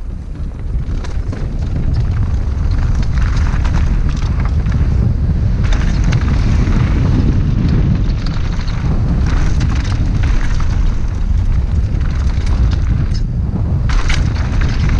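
Wind buffeting the camera's microphone as a mountain bike descends a rough dirt trail at speed, getting louder about two seconds in. Scattered clicks and rattles from the bike and tyres going over rocks and gravel.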